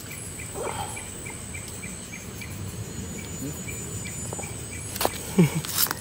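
Night insects, crickets, chirping steadily: a regular chirp about three times a second over a high, unbroken insect trill. About five seconds in comes a sharp knock, then a brief rustle just before the end.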